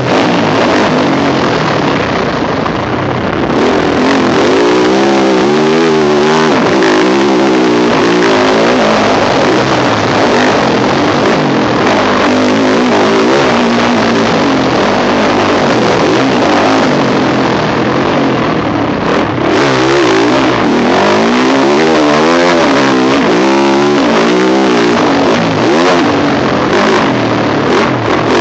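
Yamaha YZ450F motocross bike's four-stroke single-cylinder engine being ridden hard, revving up and down over and over as the rider works the throttle and gears around the track.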